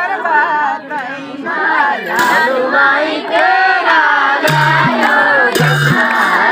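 A group of voices singing a Teej folk song together. From about halfway through, hand claps keep the beat, about two a second.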